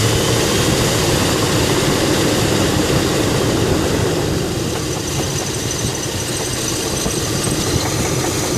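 1996 Chevy Blazer's 4.3-litre V6 idling while parked, with a knocking noise the owner cannot place. He hears it at idle but not when the engine revs up, and wonders whether it comes from down in the block.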